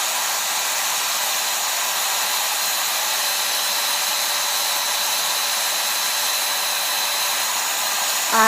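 Hand-held blow dryer running steadily, a constant rush of air with a faint high whine, aimed at the eye to curl freshly fibered lashes.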